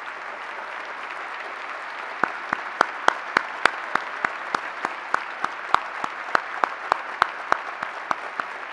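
Audience applauding steadily. From about two seconds in, one person's hand claps close to the microphone stand out above it, about three claps a second.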